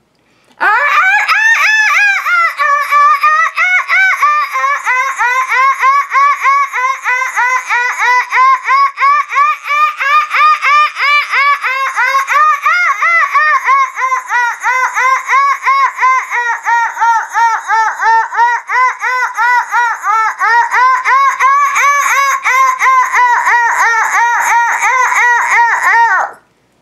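A woman's voice making a long run of rapid, high-pitched pulsed sounds without words, her 'dolphin light language' imitation of dolphin calls. The pitch starts highest and settles lower within the first few seconds, then holds fairly level, and the sound cuts off suddenly near the end.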